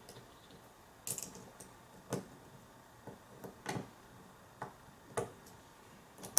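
Small metal clicks and scrapes, about six at irregular intervals, as a tool works at the retaining clip on the back of a lock cylinder to pry it off.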